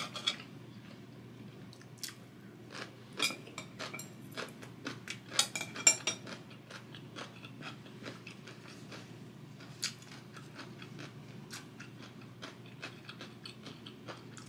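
A person chewing food close to the microphone, with wet mouth clicks and smacks. The clicks come thickest about three to six seconds in and then thin out to occasional smacks.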